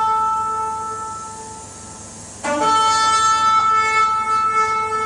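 Recorded trumpet blasts playing: one long held note fades away, then about two and a half seconds in a second loud blast starts with a quick upward slide and is held steady.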